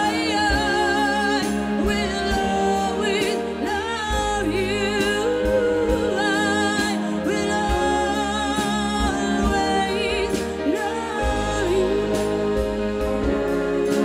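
Live music: a woman sings held notes with a wide vibrato into a microphone, over sustained instrumental chords with a steady beat.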